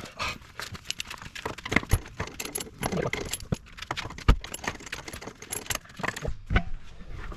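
Metal hand tools clinking and knocking as they are handled, with many short clinks and a few heavier thumps.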